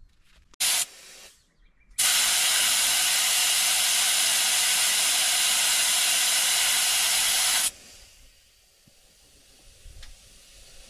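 Compressed air hissing out of a vehicle tyre's valve as the tyre is let down for driving on sand. A short blast comes about half a second in, then a steady loud hiss from about two seconds in lasts nearly six seconds and cuts off abruptly.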